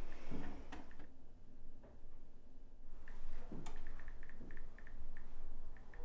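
Quiet room with a couple of light knocks and a run of soft, irregular ticks starting about halfway through.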